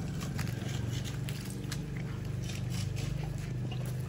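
A pit bull-type dog tearing at and chewing a whole raw chicken: scattered short clicks and scrapes. They sound over a steady low engine-like hum.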